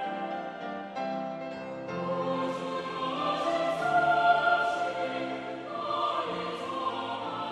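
Mixed church choir singing a sacred anthem in held chords, the voices moving to new chords every second or so.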